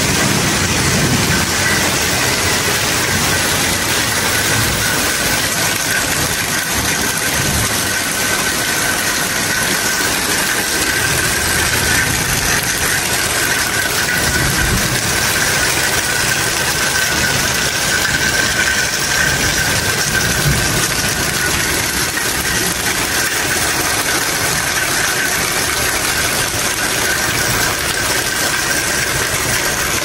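Heavy rain falling steadily, with water streaming off the porch roof edge in runoff; a steady high-pitched tone sits underneath the rain.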